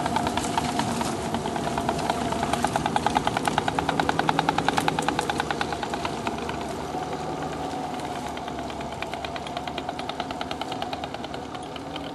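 A 1945 Studebaker M29 Weasel with its six-cylinder Studebaker Champion engine, running with a steady engine note and a rapid, even clatter. It grows quieter from about halfway through.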